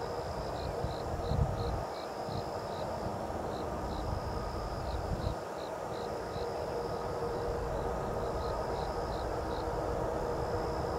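Insects chirping in short regular pulses, about two to three a second, with a steady high-pitched trill above them, over a low rumbling noise and a faint steady hum.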